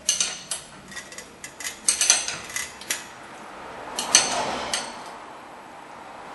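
Metal clinks and clicks of a wrench working the castle nut on a new outer tie rod end as it is tightened and brought round to line up with the cotter-pin hole, with a louder clank and a short scrape about four seconds in.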